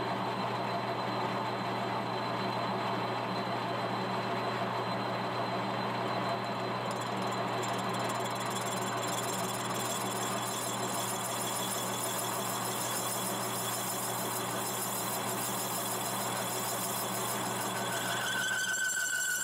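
Monarch metal lathe running under a cut, a steady motor hum with the hiss of the tool cutting. About seven seconds in, high-pitched squealing tones join in, and near the end a clearer single whistling tone takes over.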